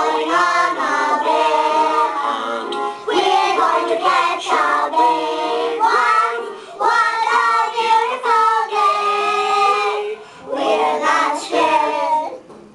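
A small group of young children singing together in unison, with held sung notes, stopping shortly before the end.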